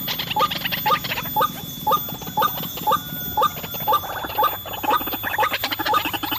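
White-breasted waterhen calling, a pitched note repeated about twice a second, with a busy chatter of further calls behind it.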